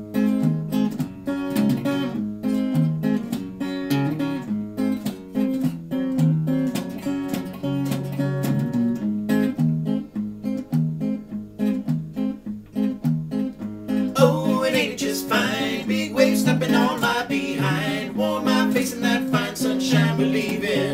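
Two guitars, a sunburst archtop and a round-back acoustic-electric, play a song's intro in a steady, even rhythm. About fourteen seconds in, a wavering singing voice joins over them.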